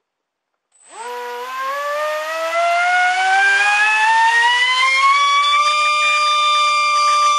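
A 3650-size 3400 kV brushless inrunner motor on a 4-cell pack spins a 4.75×4.75 propeller up from rest about a second in. Its loud whine rises steadily in pitch as the throttle comes up, then holds level at full speed. This is a static thrust run with a propeller that the owner judges too big for the motor.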